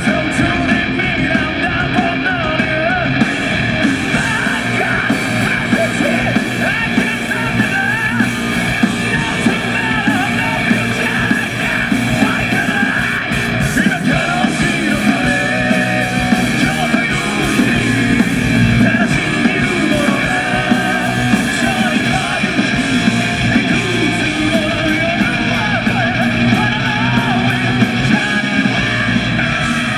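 Live heavy metal band playing loud: two electric guitars, electric bass and a drum kit, with a singer singing and yelling over them.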